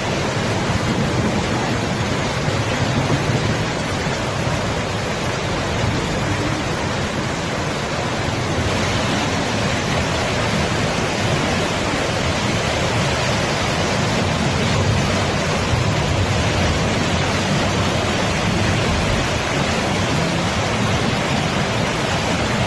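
Heavy rainstorm: a loud, steady rush of torrential rain pouring down without letup.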